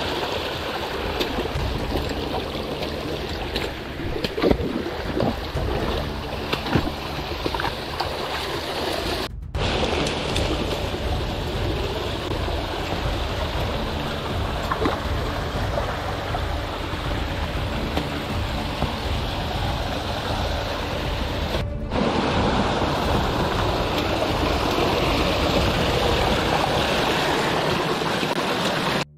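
Steady rush of a mountain stream's water over rocks. There are a few louder knocks in the first several seconds, and the sound drops out briefly twice.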